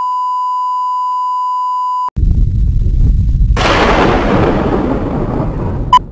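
A steady, high-pitched electronic test tone that cuts off abruptly about two seconds in. Loud low rumbling noise follows, a hiss joins it about a second and a half later, and a short beep sounds near the end.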